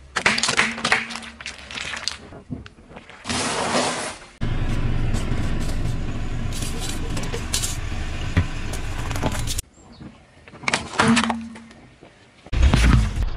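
Car tyre rolling over and crushing objects on pavement, in several short cut-together takes: crackling, cracking and squashing in separate bursts, with a loud low crunch near the end. In the middle stretch a folding steel steamer basket is handled, with light metallic clinking over steady outdoor noise.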